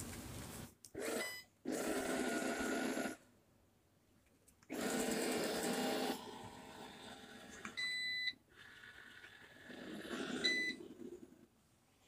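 Eufy robot vacuum running on carpet with its motor and brushes whirring in short stretches that start and stop abruptly. Three short electronic beeps come from it, about a second in, around eight seconds and near the end.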